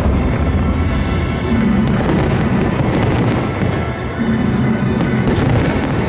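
Fireworks bursting over loud music: a string of booms and crackling bangs, with a hissing burst about a second in, while music plays throughout.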